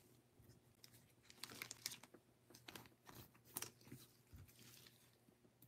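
Faint scattered clicks and rustles of baseball trading cards being handled and flipped through in gloved hands.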